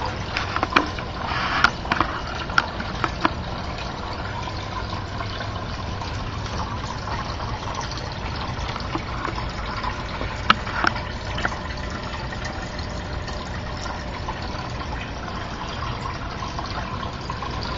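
Steady splashing and bubbling of running water, with a few sharp clicks and knocks in the first few seconds and again about ten seconds in.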